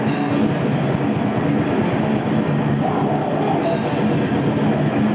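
Heavy metal band playing live: loud distorted guitar in a dense, steady wash of sound.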